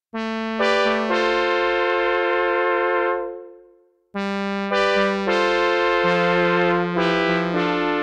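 Synth brass preset 'Siel Orchestra Brass' in ReFX Nexus, modelled on the Siel Orchestra 1970s ensemble keyboard, playing two held chord phrases. In each, notes enter one after another and the chord is sustained, then fades out, the first about 3 s in and the second near the end.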